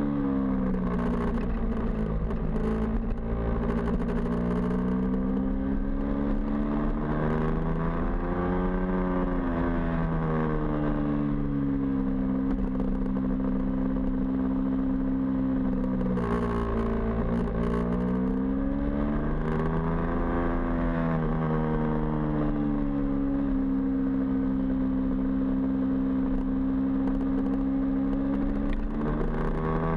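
Small motorcycle engine running hard around a track, its pitch climbing and dropping off several times as it is throttled up and eased back through the corners.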